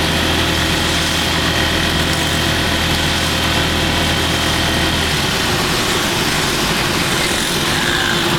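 Vehicle engine running, heard from inside the cab while driving through rain, under a steady hiss of rain and wet road. The low engine hum changes about five seconds in.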